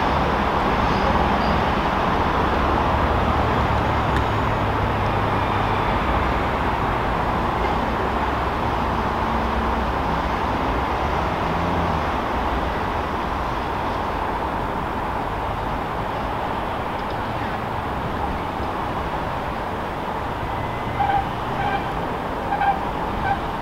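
Diesel engine of an InterCity 125 (HST) power car running as the train pulls away and draws off into a tunnel, the rumble fading slowly. A few short high squeaks come near the end.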